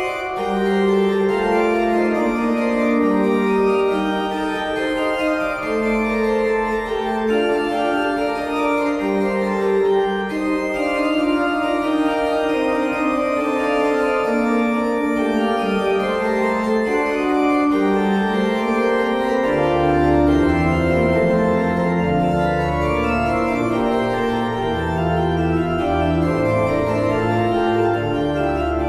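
Church pipe organ playing several interweaving lines of sustained notes. About two-thirds of the way in, deep bass notes join beneath them.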